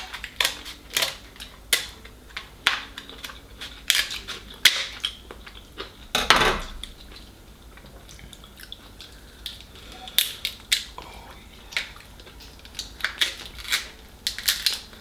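Irregular sharp clicks and cracks of king crab shells being broken open and picked at, with utensils clattering on plates. A longer, louder crunch comes about six seconds in.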